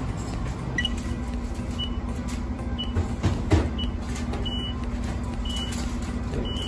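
Handheld CO gas meter probing a gas appliance: short high electronic beeps about once a second, the later ones longer, with a steady low hum starting alongside them. Under it runs the steady noise of the kitchen's ventilation.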